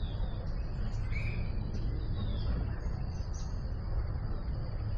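Birds chirping in short, scattered calls over a steady low rumble and a constant high-pitched drone.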